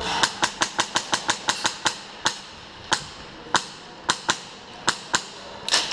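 Airsoft guns firing single shots, sharp cracks. They come quickly through the first two seconds, then space out to about one every half second to a second, with a small cluster near the end.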